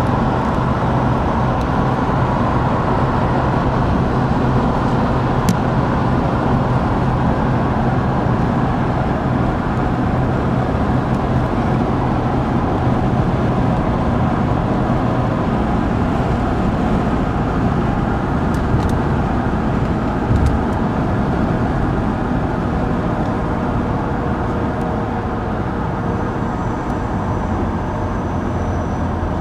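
Car cabin noise while driving: a steady mix of engine hum and road and tyre noise, with a few faint clicks. The low hum drops in pitch about halfway through.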